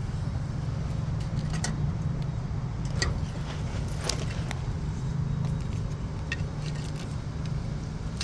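Faint clicks and light rattles of a vehicle's wiring harness and plastic clips being handled, over a steady low rumble.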